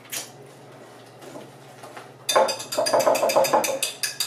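Wire whisk beating a thick egg-yolk and shredded-cheese batter in a glass mixing bowl. The wires strike the glass in rapid clicks, about seven a second, starting about halfway through.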